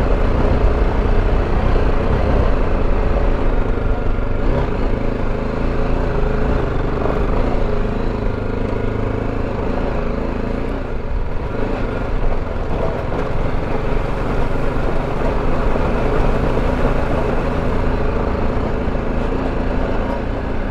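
BMW G310GS single-cylinder motorcycle engine running steadily under way on a dirt track, with a continuous low rumble.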